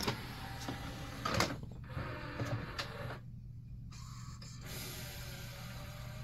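Marantz LaserDisc player's motorized tray drawing the disc in and shutting with clicks and clunks. After a short pause a faint whir starts about five seconds in as the LaserDisc begins spinning up toward its 1800 RPM playing speed.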